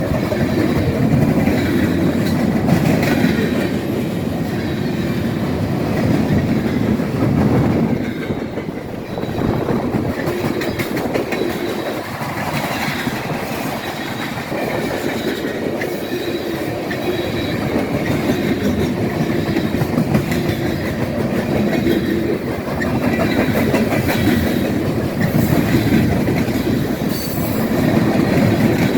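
Freight train cars rolling past, steel wheels clacking over the rail joints, with a faint high wheel squeal at times.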